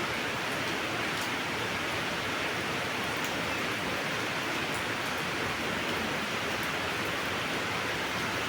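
Steady rain falling: a constant hiss with faint scattered drop ticks.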